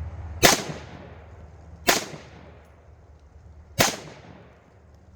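Three unsuppressed shots from a Springfield Saint Victor AR-15 in 5.56 firing standard ammunition, a second and a half to two seconds apart, each a sharp crack that rings out and fades.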